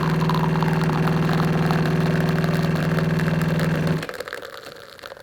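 Jura E8 espresso machine's built-in burr grinder grinding coffee beans for the first of two espressos: a steady motor hum that stops about four seconds in, followed by fainter machine sounds.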